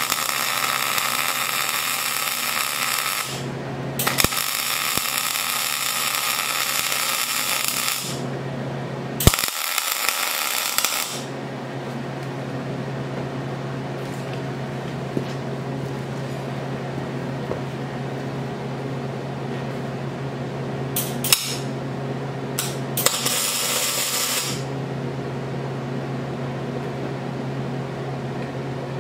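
MIG welder arc crackling and sizzling while laying finish weld beads on steel: three runs over the first eleven seconds or so, then short bursts about 21 and 23 seconds in. A steady low hum carries on between the runs.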